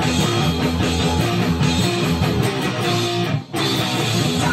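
Gibson Les Paul Standard electric guitar played through an amp: a loud, driving heavy-metal rhythm riff with one short stop about three and a half seconds in.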